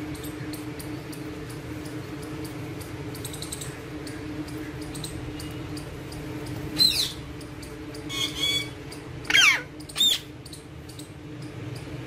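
Alexandrine parakeets giving four short, sharp calls in the second half, one of them a falling glide, over a steady low hum and faint ticking.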